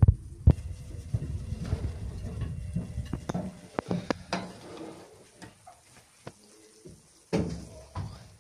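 A metal baking pan clinking and scraping against oven-rack wires as it is handled, with scattered sharp clicks over a low handling rumble and a louder knock about seven seconds in.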